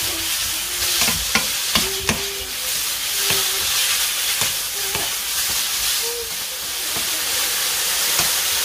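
Sliced pork sizzling as it stir-fries in oil in a nonstick wok, with a wooden spatula scraping and knocking against the pan several times.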